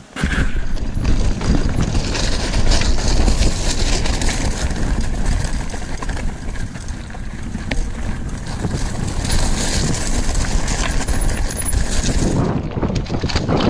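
Mountain bike ridden over a rough trail, tyres and frame rattling and clattering over a strong low rumble. It starts suddenly, and the hiss in the upper range thins near the end.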